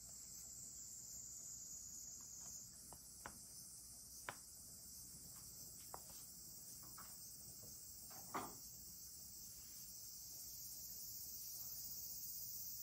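Faint, steady high-pitched chorus of crickets, with a few soft ticks about 3, 4, 6 and 8 seconds in.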